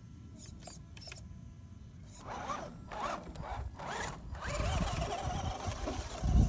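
Tamiya CC-01 Landfreeder radio-controlled truck's electric motor and gearbox whining, rising and falling in pitch several times about two seconds in, then settling into a steadier, wavering whine as it climbs loose sand. A low rumbling noise builds toward the end.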